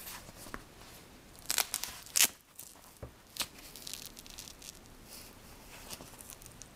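Hands handling and flexing a DICOTA TabGuard tablet sleeve with a leather-look outside and a felt lining: scattered rustles and creaks of the case material. The two loudest come about one and a half and two seconds in.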